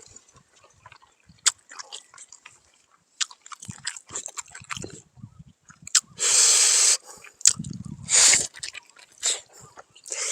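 A person chewing food close to the microphone, with wet mouth smacks and clicks. About six seconds in there is a loud hiss lasting under a second, and a shorter one follows near eight seconds.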